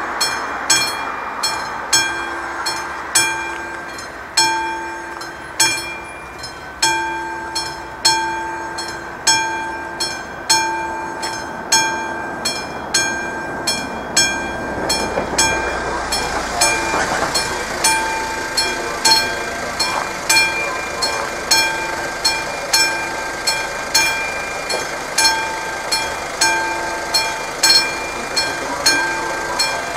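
Railway level-crossing warning bell striking steadily, about once a second, each strike ringing out. A train passes through the crossing partway through.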